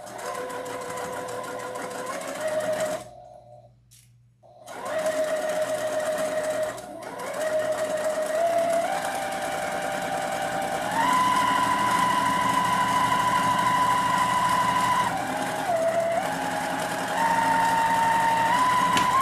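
Electric sewing machine stitching felt, its motor whine stepping up and down in pitch as the speed changes. It stops for about a second and a half around three seconds in, then runs on, fastest in the second half.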